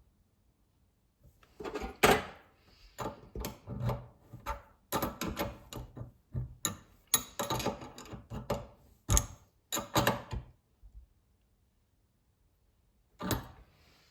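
Irregular clicks, knocks and clatter of metal parts as a cartridge valve is refitted into a Franke kitchen mixer tap, stopping about ten seconds in, with a couple more clicks near the end.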